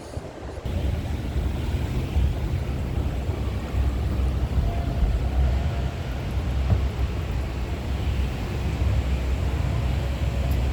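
Wind buffeting the microphone: a low, unsteady rumble with a hiss of air above it, starting suddenly about half a second in.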